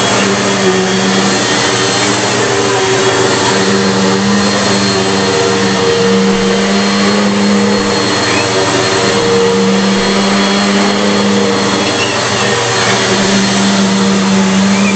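Bissell PowerForce bagless upright vacuum cleaner running steadily. Its hum swells and fades every few seconds over a constant loud rush of air.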